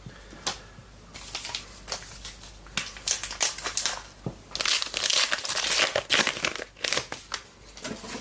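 Trading card pack wrapper crinkling and crackling as it is handled and torn open, in irregular bursts that grow dense about three seconds in.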